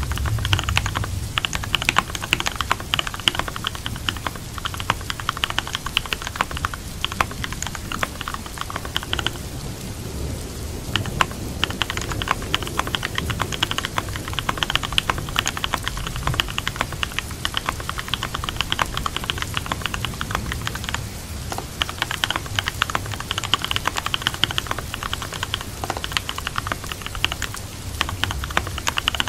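Typing on a computer keyboard, a dense run of key clicks that pauses briefly about nine seconds in and again about twenty-one seconds in, over steady rain.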